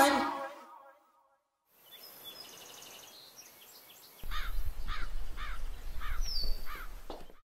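Music fades out, then after a short silence a bird of prey calls in a run of about six short calls, roughly two a second, over a low rumble, with one high falling whistle among them; the sound cuts off suddenly near the end.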